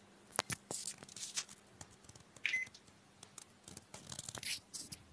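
Scattered light clicks and taps from working the controls of a Panasonic combination oven, with one short beep about two and a half seconds in as the 25-minute cook starts. A faint steady hum from the running oven lies underneath.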